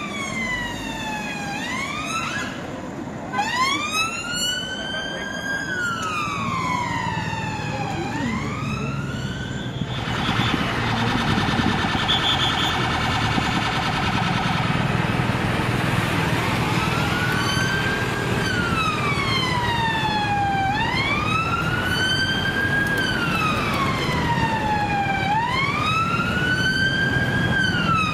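Police sirens wailing, the pitch sweeping slowly up and down every few seconds, with more than one siren sounding out of step with the others. For several seconds in the middle they switch to a fast, rapid pulsing before going back to the slow wail.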